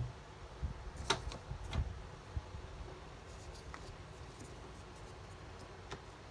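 Light knocks and taps of small objects being set down and moved around on a desk, a round coaster among them, with a cluster of sharp taps about a second in and one more near the end.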